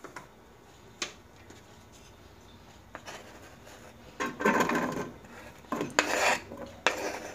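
Chopped onion scraped off a plastic cutting board into an aluminium pan. There are two scraping spells, one about halfway through and one shortly after, as the pieces land on the pan's metal bottom, with a few light single knocks before them.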